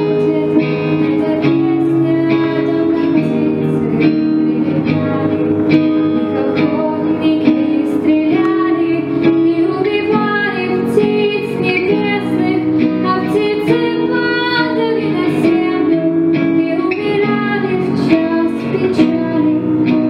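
A teenage girl singing a song into a handheld microphone, amplified, over an instrumental accompaniment with plucked strings and a steady beat.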